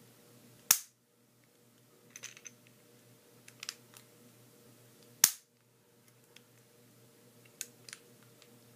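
Sharp plastic clicks and snaps from a toy action figure being handled: two loud snaps, about a second in and about five seconds in, with a few lighter clicks between.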